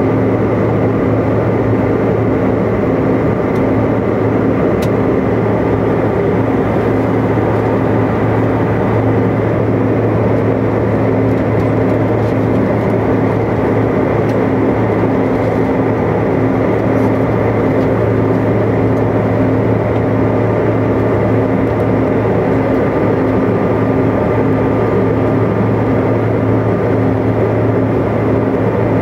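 Steady cabin noise of a Bombardier CRJ-200 regional jet in cruise: an even rush of airflow with the drone of its rear-mounted General Electric CF34 turbofans, carrying several steady hum tones.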